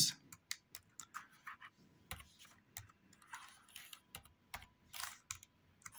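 Typing on a computer keyboard: soft, irregular keystrokes, a few a second.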